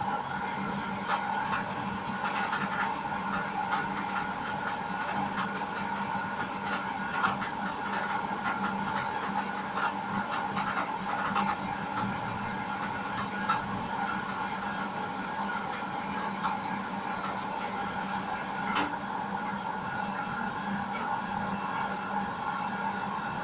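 Strands of farsan dough frying in a large kadhai of hot oil: a constant sizzle and crackle with scattered sharp pops, over a steady mechanical hum.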